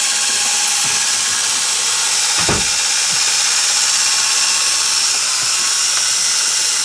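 Cordless drill running steadily, spinning a small wire wheel with a high, hissy scrubbing as it cleans rust from a part. A short knock about two and a half seconds in.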